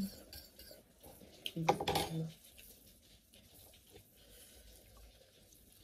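Light clinks and scrapes of a metal spoon and fork against bowls and plates while eating, with a brief voice sound about two seconds in.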